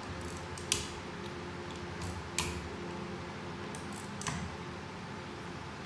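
Sharp metallic clicks of a hand driver working the bolts of a Mercedes 722.9 7G-Tronic valve body, three louder clicks about two seconds apart with a few fainter ones between, over a steady low hum.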